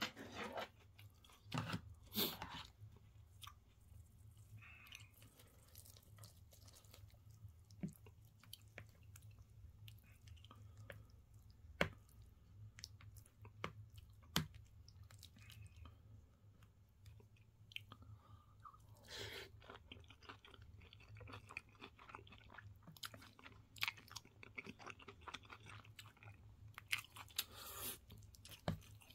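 Close-miked chewing and crunching of breaded cheese pork cutlet and curry rice, with scattered sharp clicks of a metal spoon in the plastic bowl, over a steady low hum.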